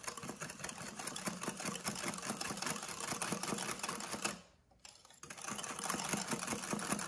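Wire whisk beating whipping cream in a ceramic bowl, a rapid rhythmic clatter of the wires against the bowl. It stops for about a second some four and a half seconds in, then starts again.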